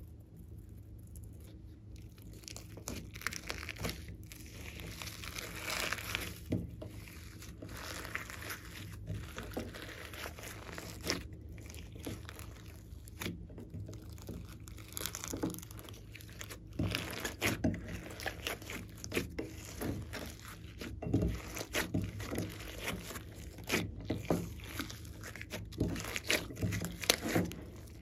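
Glossy slime mixed with clay and glitter being squished and kneaded by hand in a glass dish: a run of irregular small clicks and pops, louder in the second half.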